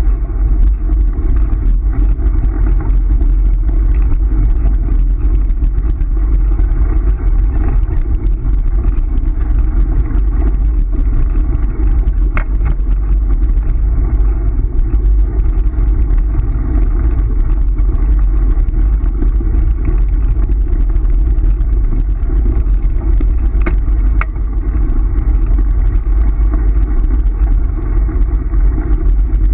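Kick scooter's wheels rolling fast over a gravel road, a steady loud rumble, with wind on the microphone.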